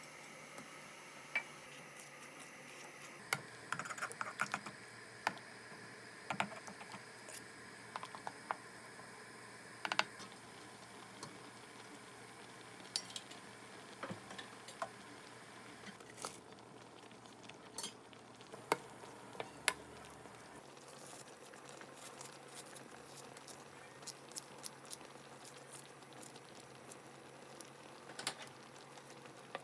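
Light clinks and taps of dishes and utensils being handled, irregular and scattered, over a faint steady background.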